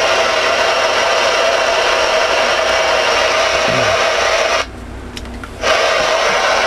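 Receiver static from the speaker of a Stryker SR-447HPC ten-meter radio with its squelch open: a steady loud hiss. It drops away sharply for about a second past the middle, then comes back.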